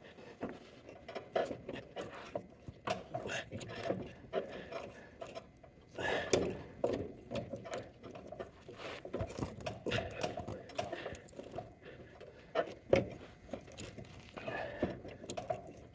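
Scattered clicks, knocks and scrapes of hands working a car jack and mower deck, with louder knocks about six and thirteen seconds in.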